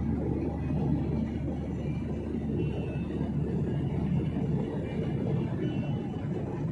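Steady low rumble of jet airliner cabin noise in cruise: engine and airflow noise heard from a window seat beside the wing.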